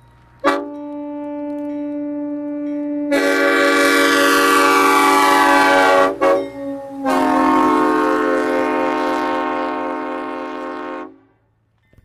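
Roof-mounted multi-chime air train horn, fed from a towed air compressor, blowing a loud chord. It starts sharply about half a second in, swells to a fuller chord about three seconds in, breaks off briefly around six seconds, then sounds again until it cuts off about eleven seconds in.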